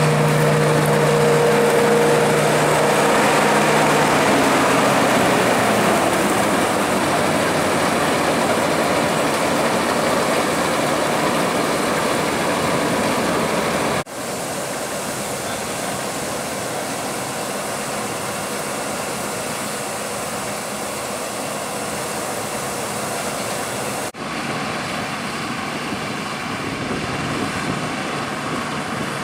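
Bizon Rekord Z058 combine harvester running at work, cutting and threshing oats: a steady mechanical din of its diesel engine and threshing drum. A steady hum fades out a few seconds in, and the whole sound drops in level about halfway through.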